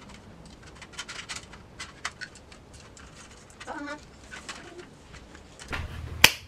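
Small clicks and rattles of plastic and metal parts as a compact LED video light and its tripod stand are handled and fitted together. Near the end comes a single loud, sharp finger snap.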